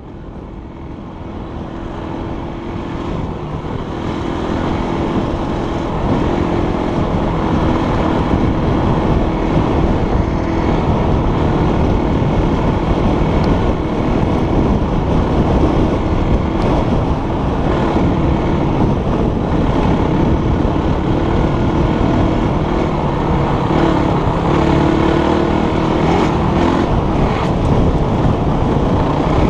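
Dirt bike engine running steadily under way on a gravel trail, fading in over the first several seconds.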